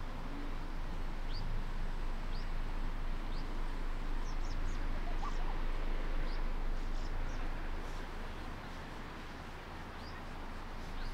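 Short, high-pitched chirps from a small animal, about one a second at first, then a quicker cluster in the middle, over a steady background hiss and low hum.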